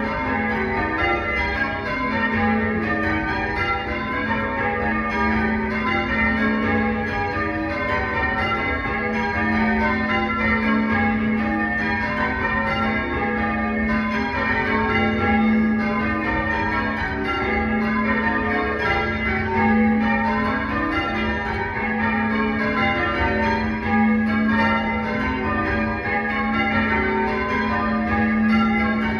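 A ring of church tower bells being change-rung, the bells striking one after another in a continuous, even rhythm.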